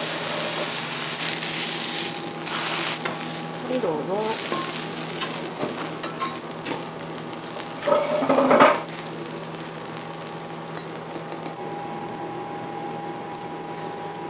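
Okonomiyaki sizzling on a hot iron griddle, loudest at the start as sauce is poured onto it. About eight seconds in, a metal spatula scrapes and cuts through it against the griddle in a short loud burst, then the sizzle settles quieter.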